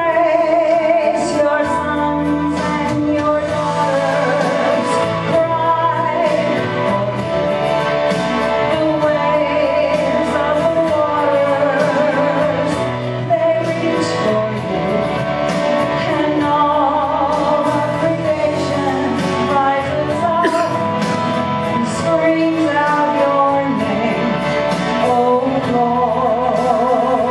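A woman singing with vibrato into a microphone over instrumental accompaniment with a steady beat.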